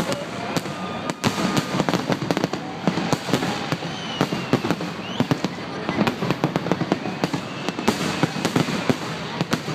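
Fireworks display: a dense, continuous run of sharp bangs and crackling reports from bursting shells.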